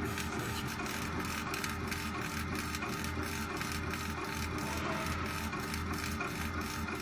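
CO2 laser engraver's stepper-driven head rastering back and forth while engraving, a steady mechanical whirr that reverses a few times a second over a steady low hum.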